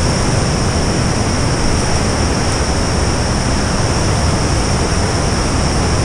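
Loud, steady roar of rushing water, with two thin, steady high-pitched whines laid over it.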